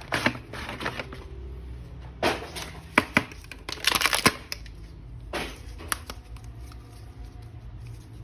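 Plastic action figure and its packaging being handled: scattered sharp clicks and taps, with a short burst of rustling about four seconds in.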